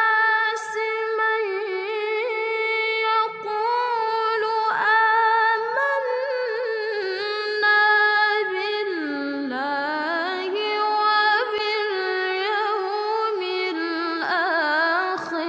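A single voice singing or chanting unaccompanied in Arabic, with long held notes and melismatic ornaments that waver and glide in pitch.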